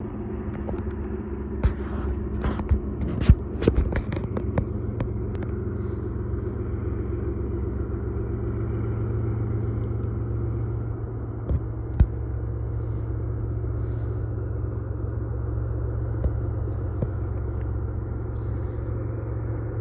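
Steady low drone of a pair of GE ES44AC diesel locomotives (GEVO 12-cylinder engines) pulling a freight train. A scatter of sharp clicks comes in the first five seconds, with one more about twelve seconds in.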